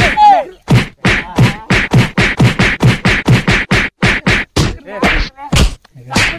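Rapid run of punch and kick blows landing on a body, about three or four sharp thwacks a second, spacing out near the end.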